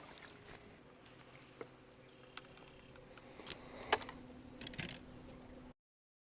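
A few light clicks and taps over a faint steady hum, then the sound cuts off abruptly to silence near the end.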